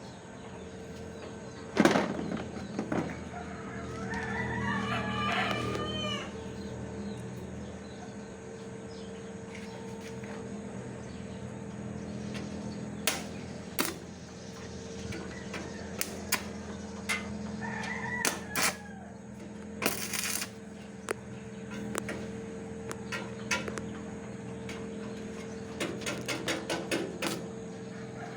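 A rooster crows once, about four seconds in, with a shorter call around eighteen seconds. Sharp knocks and clicks come at intervals, with a quick run of them near the end, over a steady hum.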